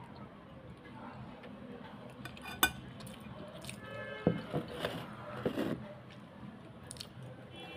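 Metal fork clinking against a ceramic bowl: one sharp clink about two and a half seconds in, then a few softer knocks and clinks.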